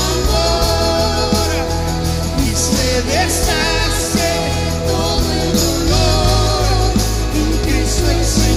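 Live worship band playing a Spanish-language praise song, a man singing lead over keyboard, guitars, bass and drums.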